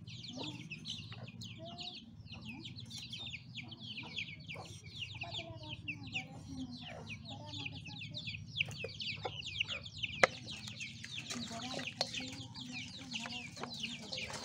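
Chickens peeping and clucking: a dense run of short, high, falling chirps with lower clucking calls, broken by scattered sharp clicks, the loudest about ten seconds in.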